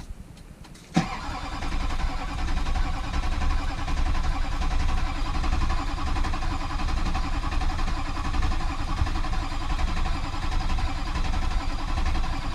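Diesel truck engine cranking on the starter motor, beginning with a clunk about a second in and turning over in an even, pulsing rhythm for about eleven seconds without catching: a crank-no-start.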